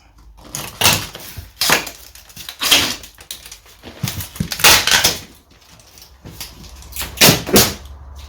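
Cardboard box and packing material being pulled open and handled: several irregular short scraping, rustling noises.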